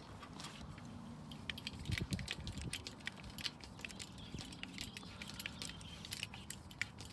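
Small irregular metallic clicks and ticks of a folding screwdriver tool turning a screw into the crank-end cap of a patio umbrella pole.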